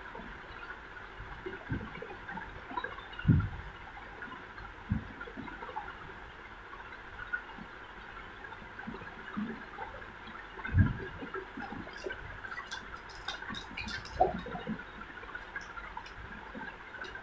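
Handling sounds of small gold balls being set by hand onto a glued paper earring base: a few dull knocks on the table and, near the end, a run of light sharp clicks, over a steady hiss.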